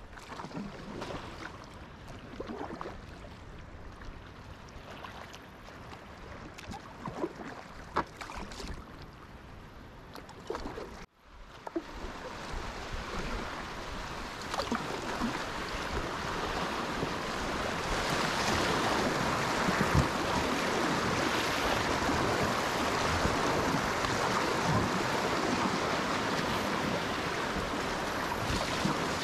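Packraft on a calm river pool: water lapping and dripping, with scattered light splashes from the paddle. After a sudden cut about eleven seconds in, there is a louder, steady rush of water running over rocks in a shallow riffle, mixed with wind on the microphone.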